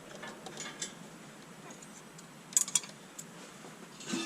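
A few light metallic clicks and taps as the bell housing bolts and parts are handled, with a small cluster of clicks about two and a half seconds in.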